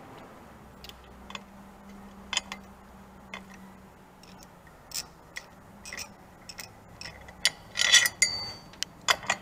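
Quiet, irregular metal clicks and taps of a socket wrench and hand tools on the sprocket cover bolts of a Harley-Davidson Sportster, bunching into a cluster of clinks near the end, followed by a short ringing ping of metal.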